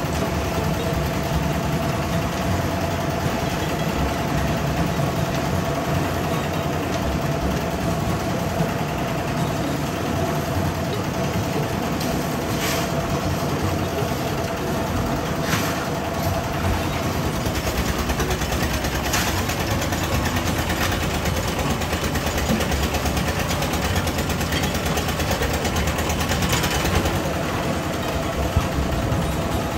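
Portable concrete mixer with a lift hoist, its engine running steadily, with four short scrapes or knocks over it in the second half.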